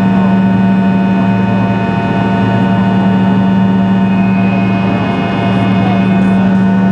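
Fokker 100's rear-mounted turbofan engine running at climb power, heard inside the cabin right beside it: a steady, loud drone with a strong low hum and a stack of steady higher whining tones.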